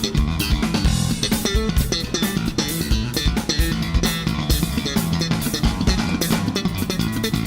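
Backing music: a rock track with electric guitar, bass guitar and a steady drum-kit beat.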